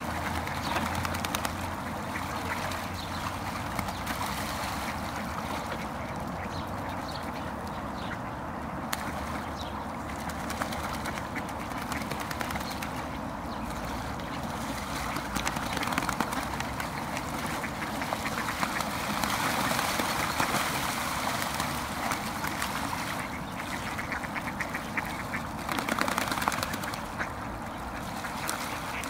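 A flock of mallards quacking and splashing about on the water, a busy continuous clamour that grows louder around twenty and again around twenty-six seconds in.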